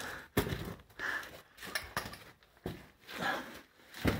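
A person breathing hard in uneven gasps while crawling through a narrow rock tunnel, with a couple of sharp knocks of the body or phone against the rock, once just after the start and once near the end.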